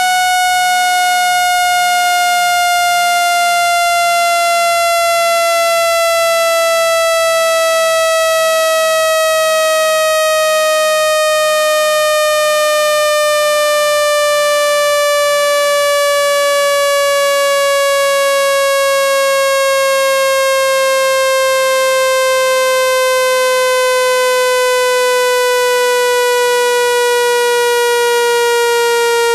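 Synthesized speaker-cleaning tone: a loud, buzzy electronic tone rich in overtones, its pitch gliding slowly and steadily downward. It is a water-eject sweep, played at full volume to vibrate water out of a phone speaker.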